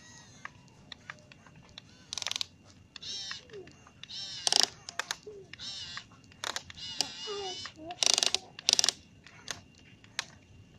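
A young child's squeals and wordless vocal sounds, several loud and high-pitched, with scattered small clicks between them.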